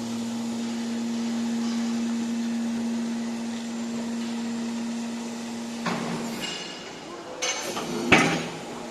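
Hydraulic scrap metal baler: a steady, constant-pitched machine hum that stops about six seconds in, followed by several metal clanks and knocks, the loudest near the end.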